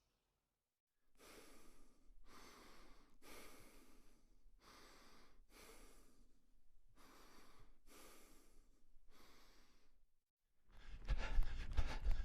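A person breathing heavily: a run of about eight breaths, each a short rush of air. Near the end a different, louder sound with sharp clicks cuts in.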